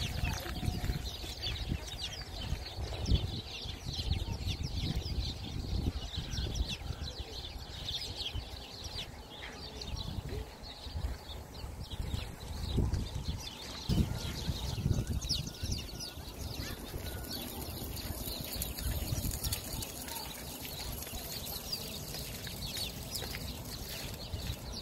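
A flock of house sparrows chirping without pause, many short, high chirps overlapping one another.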